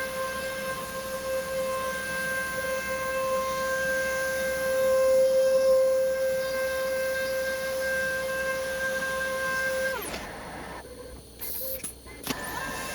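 CNC router spindle running with a steady high whine while milling white solid-core board. About ten seconds in the pitch falls as the spindle winds down, and near the end it spins back up with a rising whine.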